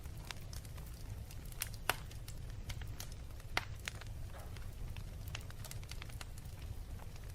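Wood fire burning in a fireplace: a steady low rumble of flames with logs crackling in irregular sharp pops, two louder snaps about two and three and a half seconds in.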